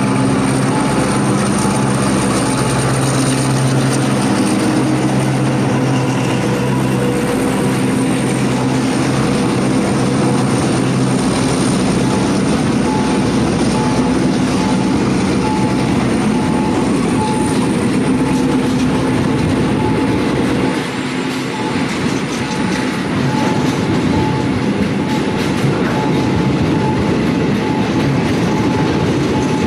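A diesel locomotive runs past close by, its engine drone strongest for the first twenty seconds or so. Then a train of tank wagons rolls by with wheels clacking over the rail joints.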